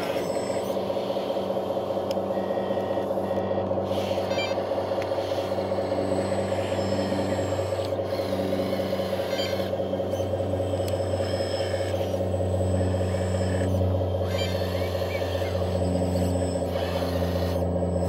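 Hydraulic pump of a 1/14-scale RC tracked skid-steer loader, the LESU Aoue-LT5, running with a steady whine. A lower hum drops in and out every second or two as the valves work the lift arms and bucket under load.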